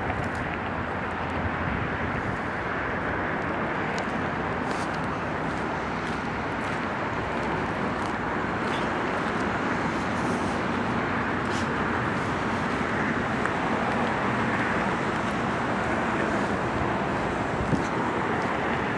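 Steady road traffic noise, an even wash of passing cars.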